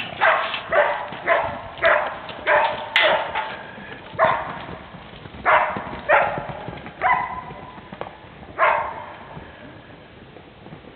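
A dog barking over and over, in quick succession at first, then more spaced out and growing fainter.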